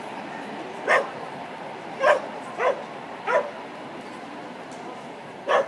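A small dog barking in short, high yaps, five of them at uneven spacing of about a second.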